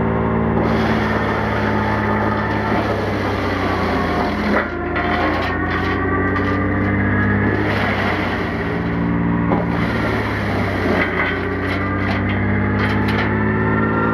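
Tractor engine driving a three-knife PTO wood chipper, running steadily under load as wood is chipped, with a grinding, rasping noise over the engine's hum and a few sharp knocks.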